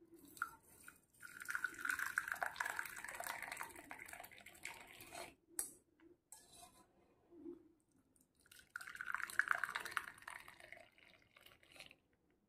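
Hot kadha (spiced herbal decoction) poured from the pan through a strainer into cups, in two pours: a longer one of about four seconds, then a shorter one of about two seconds, with a few small knocks between them.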